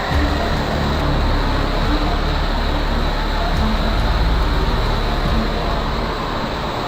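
Heavy machinery running steadily: a constant loud engine rumble with a wide hiss of mechanical noise.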